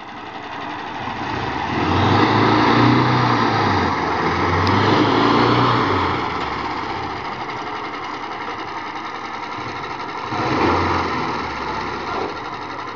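A 6x6 amphibious ATV's 14 HP four-stroke petrol engine running, revved up in two surges a few seconds in, easing off, then revved briefly again near the end.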